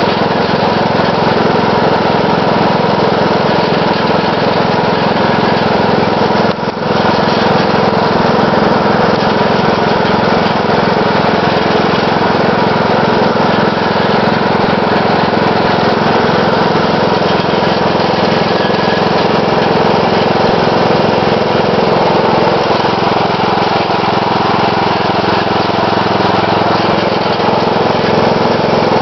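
Briggs & Stratton 12.5 hp engine of a ride-on lawn mower running steadily while the mower is driven along the road, with one brief dip in level about seven seconds in.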